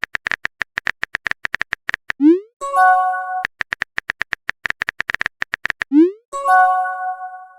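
Rapid phone-keyboard typing clicks, about ten a second, each run ending in a short rising electronic swoop and a ringing notification chime, the chat-message sent or received sound; this happens twice, and the second chime fades out.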